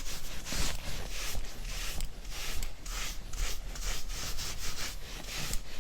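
Rhythmic rubbing strokes across a sanded marmorino plaster wall, about two to three a second, as it is worked over by hand to sand it or sweep off its dust.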